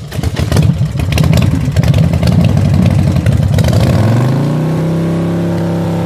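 Vehicle engine revving rough and loud, then settling into a steady even note about two-thirds of the way through.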